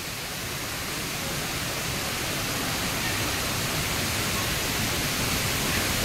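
Steady rush of a waterfall, a little louder towards the end.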